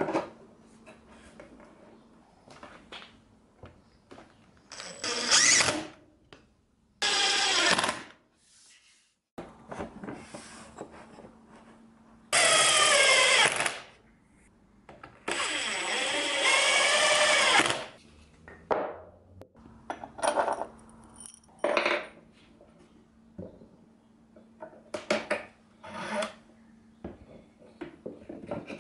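Power drill-driver run in about four bursts of one to two seconds, its whine rising and falling as the motor speeds up and slows under load, with shorter bursts, clicks and knocks of wooden parts being handled in between. A faint steady hum runs underneath.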